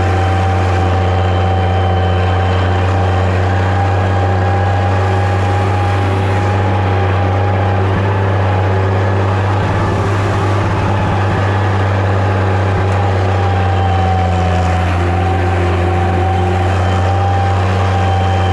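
Massey Ferguson 95X tractor's six-cylinder diesel engine running steadily under load, a deep constant drone with a steady higher tone over it.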